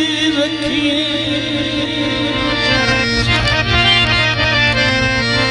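Harmonium playing held chords with drum strokes, as a folk-song accompaniment; a male singing voice finishes a line about half a second in.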